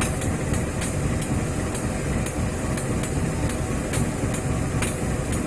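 Train passing with a heavy, steady rumble, and a sharp tick repeating evenly about twice a second.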